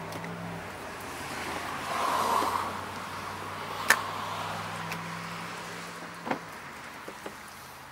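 Small two-stroke engine of a Husqvarna 122HD45 hedge trimmer idling with a steady low hum that slowly fades, with two sharp clicks about four and six seconds in.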